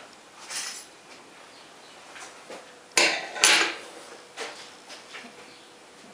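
Metal tools and parts clinking and knocking as they are handled on a steel workbench, with two sharp metallic knocks about three seconds in, half a second apart, and lighter clinks before and after.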